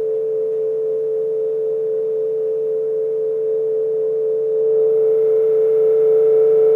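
Electric piano holding two notes together as a steady, pure-sounding tone, driving the membrane for the laser pattern; about five seconds in it grows a little louder and brighter, then stops suddenly.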